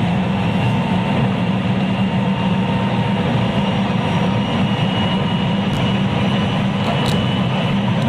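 JR West 223 series electric multiple unit running at speed, heard from inside its motor car KuMoHa 223-3016: a steady low rumble of wheels on rail with a faint even whine from the running gear.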